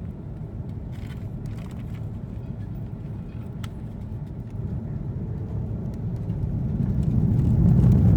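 Airbus A330-300 cabin noise during a go-around: a steady low rumble of engines and airflow that swells over the last few seconds as the engines spool up to go-around thrust.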